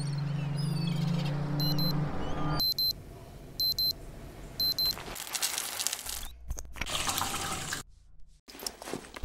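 An electronic alarm clock beeping in short double beeps, about once a second, four times. It overlaps a low steady drone with high chirps at the start. Then water runs with a dense rushing sound for a few seconds.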